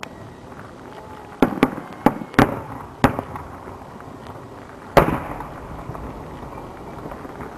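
Aerial firework shells bursting: a cluster of sharp bangs between about one and three seconds in, then one loud bang about five seconds in, each trailing off in an echo.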